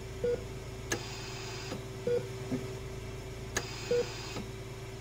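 Hospital heart-rate monitor beeping: three short, identical beeps about two seconds apart over a steady electrical hum, with two sharp clicks in between.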